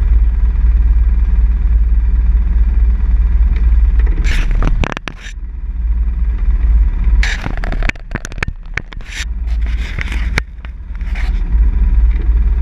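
ATV engine idling in a steady low rumble, with scraping, crackling noise breaking in several times around the middle.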